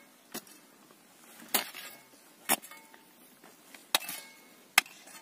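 Hand hoe chopping into dry, stony soil to dig planting holes: five sharp knocks, each about a second apart.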